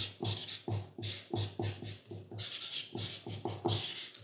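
Pen writing by hand on a sheet of paper laid on a table: a quick run of short strokes, each with a light knock on the table.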